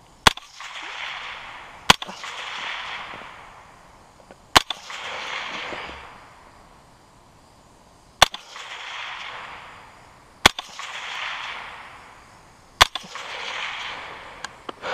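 LWRC semi-automatic rifle firing six single shots, spaced about two to three and a half seconds apart, each followed by an echo that rolls on for a second or two.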